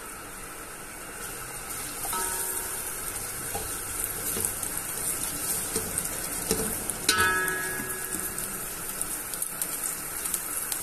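Diced carrots sizzling in a little oil in a metal pot, frying gently on low heat to soften, while a spoon stirs them with small scrapes and knocks against the pot. The sizzling grows louder about two seconds in, and a sharp clink about seven seconds in rings briefly.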